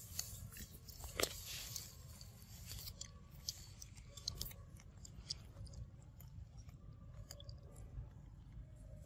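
Macaques chewing and biting kernels off a corn cob: irregular small crunches and clicks, with one sharp, louder crunch about a second in.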